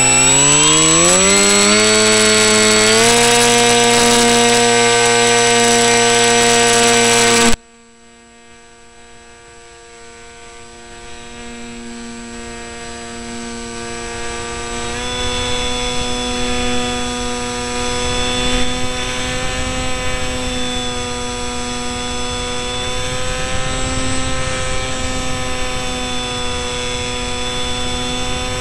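Electric motor and propeller of an RC delta-wing model spinning up with a rising whine, then running at a steady pitch. About seven seconds in the sound drops abruptly to a much quieter, duller whine, which gradually grows back to a steady level.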